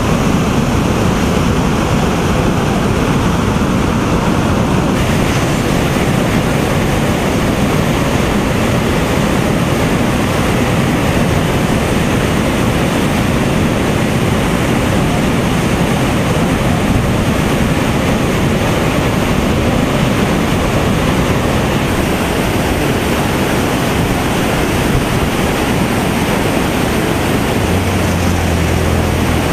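Floodwater pouring over a dam spillway, a loud, steady rushing of churning white water.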